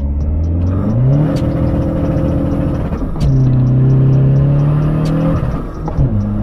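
Volkswagen Polo's 1.6 TDI four-cylinder diesel, fitted with a hybrid turbo, under full throttle on a 0-100 km/h acceleration run. The engine note climbs sharply about a second in, then drops at a gear change about three seconds in, pulls again, and drops at a second shift near the end.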